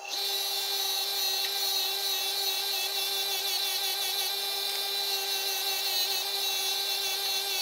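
Sealey bench grinder running with a wire wheel: a steady hum under a scratchy high hiss as brake caliper slider pins are held against the spinning wire brush to clean them.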